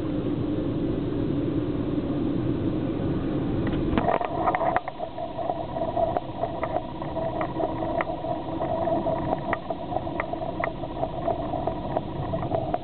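Road and engine noise inside a moving car's cabin, a steady low rumble. About four seconds in the rumble drops, and a steady whine with a run of light clicks, roughly every half-second, goes on to the end.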